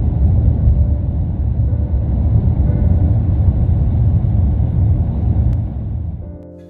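Car on the move: a loud, steady low rumble of road and engine noise that fades out shortly before the end.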